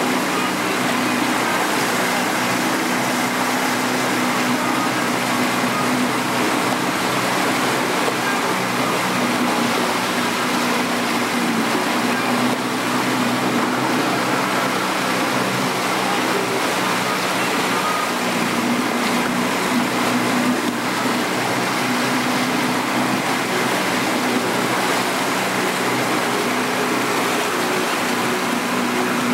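A boat's engine running steadily, a low drone of even tones, under a constant rushing noise of water.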